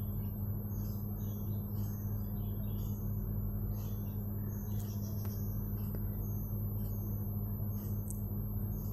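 Steady low hum and hiss, with faint short chirps scattered through it.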